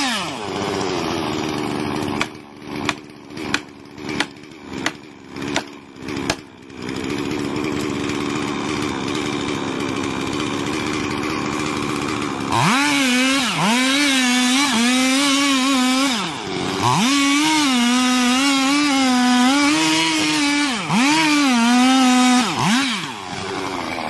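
Gas chainsaw running steadily, with a run of about seven sharp knocks starting about two seconds in. Then it cuts into the large trunk at full throttle for about ten seconds, its engine pitch dipping and recovering again and again as the chain bites, before it drops back near the end.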